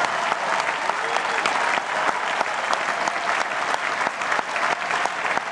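Large crowd applauding, a dense, steady clapping.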